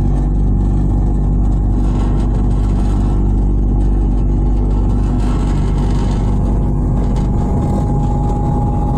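Desiccant dehumidifier unit running, its blower motors giving a loud, steady hum. A thin steady tone joins about five and a half seconds in.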